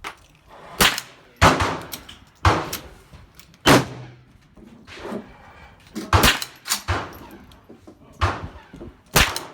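Gunshots at a firing range: about eight sharp reports at an uneven pace, each trailing off in an echo.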